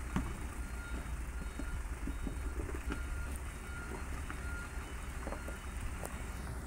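Dump truck's diesel engine rumbling low as it crawls through deep mud ruts, with a series of short electronic beeps, like a vehicle's reversing alarm, repeating through it and a few scattered knocks.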